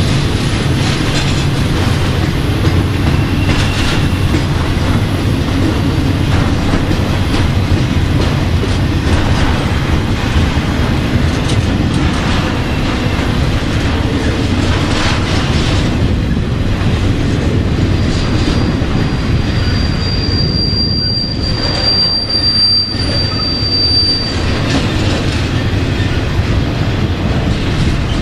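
Freight train of trailers on flatcars rolling past close by, a steady heavy rumble of steel wheels on rail. A high, thin wheel squeal rises out of it for several seconds about two-thirds of the way through.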